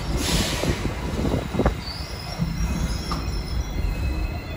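An R68 New York subway train rolling slowly along the platform: a low rumble of wheels on rail with occasional clicks at the rail joints. A thin, high-pitched wheel squeal comes in from about two seconds in and again near the end.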